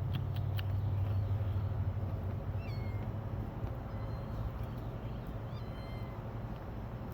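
Kittens mewing: a few short, thin, high-pitched mews, some dropping in pitch, over a steady low hum that fades after the first few seconds.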